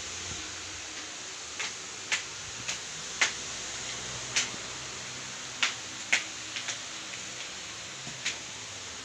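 About ten small, sharp clicks at irregular intervals over a steady hiss.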